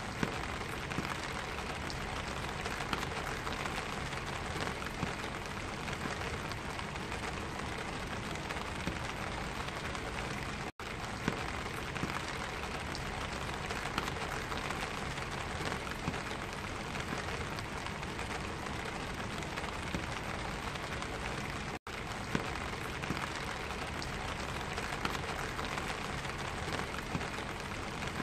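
Rain falling on a black vinyl umbrella, heard from beneath the canopy: a dense, steady hiss of drops with many small sharp taps as they strike. The sound cuts out for an instant twice, about a third and two thirds of the way through.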